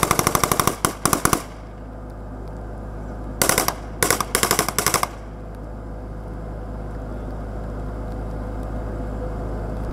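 Rapid automatic gunfire in two bursts. The first stops about a second and a half in; the second comes about three and a half seconds in as three short strings of shots over a second and a half. Between and after the bursts, a steady low rumble.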